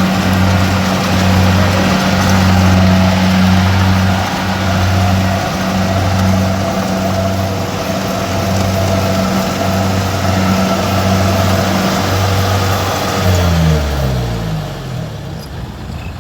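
An engine running steadily under load. About thirteen seconds in, its pitch falls away as it slows down, and the sound drops in level.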